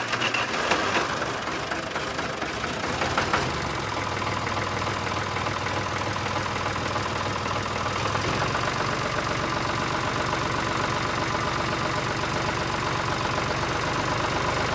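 Mini model tractor running steadily: an even, engine-like sound with a fast chug that does not let up.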